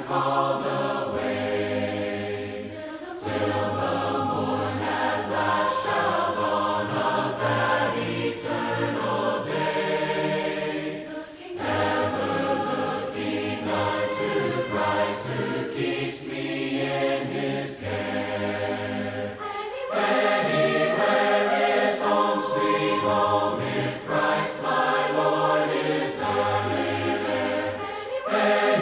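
A church choir singing a hymn a cappella in harmony, with voices from a low bass line up to high parts holding long notes in phrases of several seconds.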